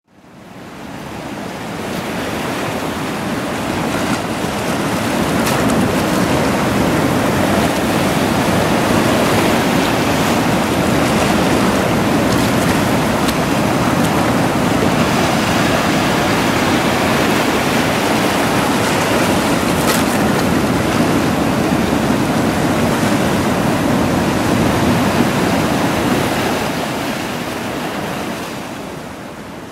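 Sea waves washing over shore rocks: a continuous rushing surge with a few faint clicks in it. It fades up over the first seconds and sinks a little near the end.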